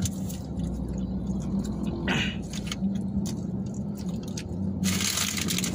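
Steady low hum of a car's idling engine heard inside the cabin, with a brief rustle about two seconds in. A steady hiss comes in suddenly near the end.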